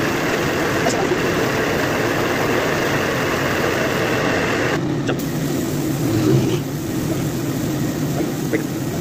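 Gravity-feed compressed-air paint spray gun hissing steadily while spraying, the hiss dropping away about five seconds in, over a steady motor hum.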